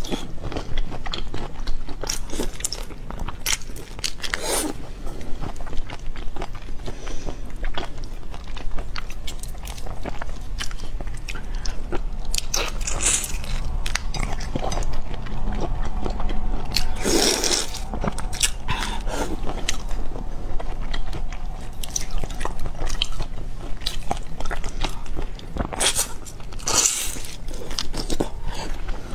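Close-miked eating of seafood: steady biting and chewing with many crunches, a few of them louder.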